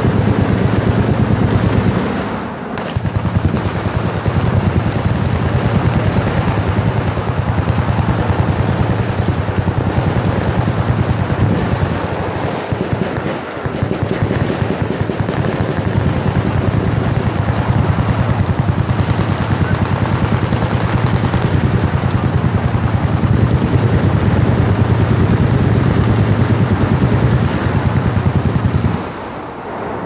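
Many machine guns firing at once in a continuous rattle of automatic fire, with brief lulls about two seconds in, around thirteen seconds, and just before the end.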